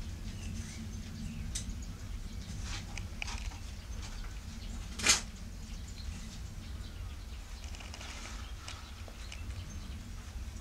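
Soft rustling and scraping of leaves and soil as gloved hands weed around tomato plants with a small hand tool, with one sharp click about five seconds in, over a steady low rumble.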